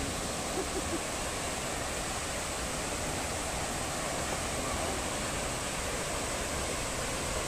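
Waterfall rushing steadily: a continuous, even noise of falling water.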